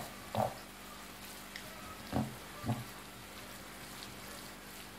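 Grated vegetables frying in a pan with a steady sizzling hiss as they are stirred, with three short thumps: one about half a second in and two in quick succession a little after two seconds.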